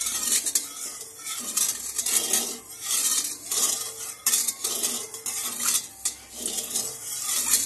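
Metal spatula scraping and stirring against the inside of a steel kadai of hot mustard oil, in repeated irregular strokes.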